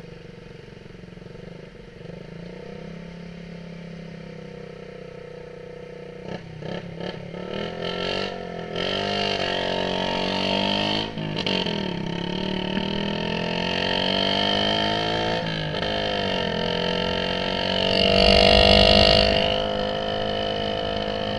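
Motorcycle fitted with an aftermarket exhaust tip, running steadily at first, then revving up and dropping back repeatedly from about six seconds in as it accelerates through the gears. The loudest surge comes near the end.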